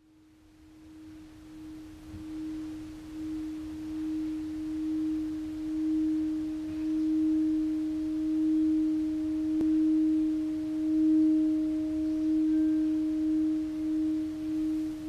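A single pure, sustained humming tone at one steady pitch, swelling in from silence over the first few seconds and then wavering slowly in loudness. A faint higher tone an octave up joins it about four seconds in.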